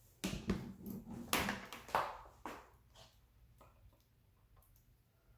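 A plastic resin vat from a resin 3D printer handled and set down on a countertop: a quick run of knocks and clatter in the first two and a half seconds, then a few faint clicks and rubbing as a gloved hand wipes inside it with a paper towel.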